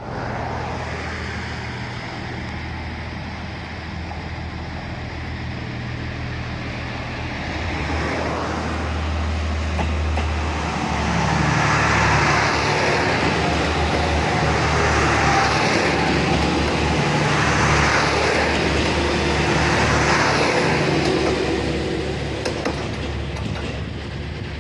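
JR East HB-E300 series hybrid diesel train (the Resort Shirakami 'Buna' set) running slowly past at close range. A low steady hum at first; from about eight seconds it grows louder and rougher as the cars roll by, swelling every few seconds, then easing off near the end.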